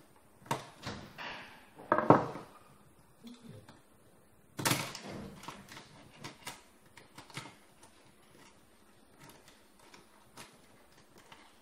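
Clicks, knocks and clatter of metal and plastic parts as a copier fuser unit is worked apart by hand with a screwdriver, and the screwdriver is set down on the table. The knocks come at uneven times, the loudest about two seconds and nearly five seconds in.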